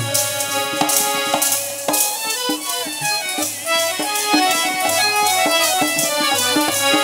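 Instrumental interlude of Punjabi devotional music: a harmonium plays the melody over a steady rhythm of hand-played dholak strokes.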